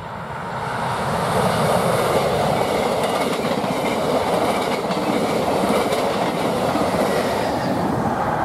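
Electric locomotive hauling a long train of passenger coaches passing close by: the rush of wheels on rail swells over the first second, then stays loud and steady as the coaches go past.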